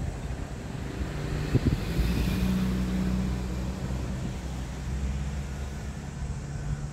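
A motor vehicle's engine running steadily, a low hum that sets in about two seconds in, over road traffic noise.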